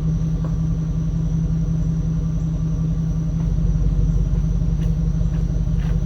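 Pickup truck engine idling steadily with a low rumble, with a few faint clicks.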